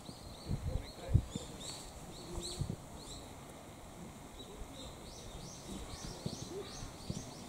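Small birds chirping, a long run of short, high, quick calls repeated through the whole stretch. A few low thuds come near the start, the loudest about a second in.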